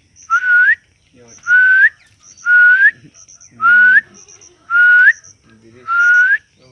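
A bird whistling the same call over and over, about once a second. Each call is a clear half-second whistle that holds its pitch and then slides up at the end.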